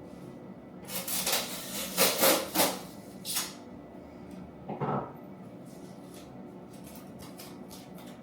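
A quick run of rubbing strokes for about two and a half seconds, then one more short stroke a little later, with a few faint ticks near the end.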